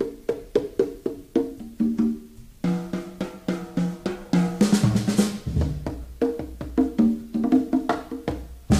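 Background music: a bouncy tune of short pitched notes over wood-block and drum hits, with a louder drum hit near the end.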